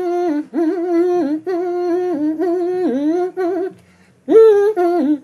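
A voice humming a tune in a series of held notes, each dipping in pitch at its end, with a brief pause about four seconds in.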